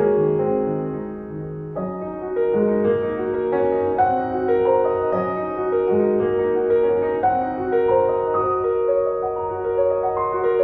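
Piano music playing: a melody of struck, held notes over lower accompanying notes.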